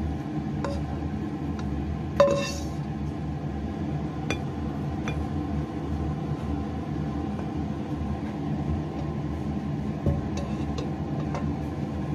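A slotted spatula clinks and taps against a wok and a serving bowl as stir-fried food is scraped out. There is one sharp ringing clink about two seconds in and a few lighter taps later, over a steady low kitchen hum.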